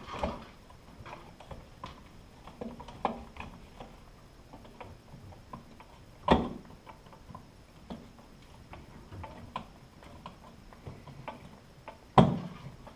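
Screwdriver tightening the mounting screws of a ceiling light fixture's metal base: irregular small clicks and scrapes, with two louder knocks, one about six seconds in and one near the end.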